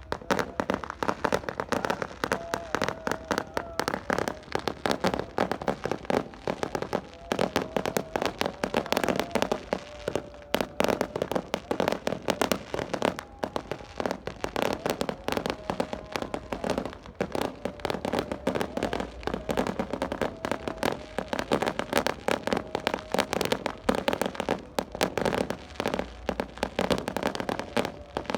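Many firecrackers and fireworks going off together in a dense, continuous rapid crackle of small bangs, with no pause.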